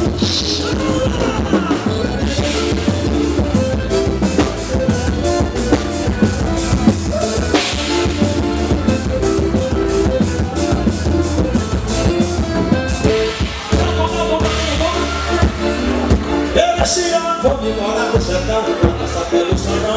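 Live band music: a drum kit keeps a steady, even beat over bass and pitched instruments, with some singing.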